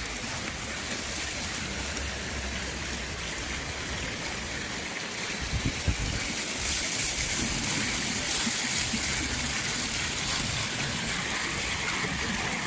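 Water running steadily, with a few small knocks about six seconds in.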